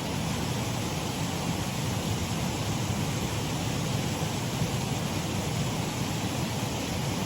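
Shallow waterfall on a mill race stream: a steady rush of falling and running water, unchanging throughout.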